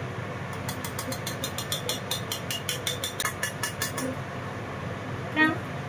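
Steady hum of a kitchen fan. From about half a second in until about four seconds, a rapid run of clicks, about five a second, as a metal spatula scrapes stir-fried vegetables from a wok onto a plate. A single small clink comes near the end.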